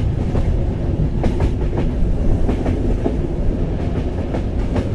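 Train wheels running over jointed rail track: a steady low rumble broken by sharp clicks in quick groups, the classic clickety-clack ('tactac-tadoum') made as the wheels cross the small expansion gaps between short rail lengths.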